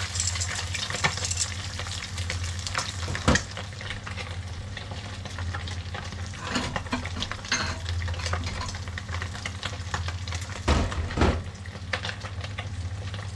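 Small whole fish sizzling and crackling as they fry in hot oil in a pan, over a steady low hum. A sharp knock comes about three seconds in and a couple more near eleven seconds.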